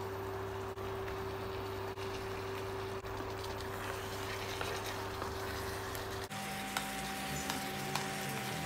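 Thick curry sauce with chicken pieces simmering in a pan while being stirred, over a steady electrical hum. The hum shifts to a different pitch abruptly about six seconds in, and a few light knocks follow near the end.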